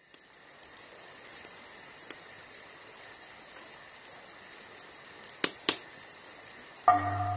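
Steady high chirring of crickets, with a few sharp crackles from a wood fire. Near the end, music starts with a low repeated note.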